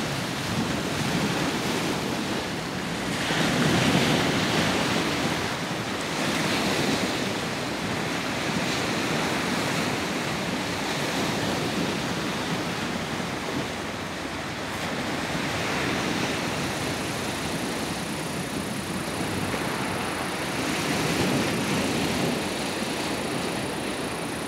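Sea waves washing in, a steady rush that swells and fades every few seconds, loudest about four seconds in.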